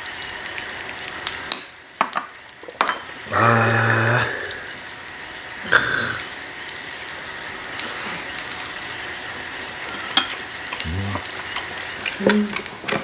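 Beef short ribs sizzling in a tabletop electric grill pan, a steady hiss, with scattered light clicks of chopsticks and tongs.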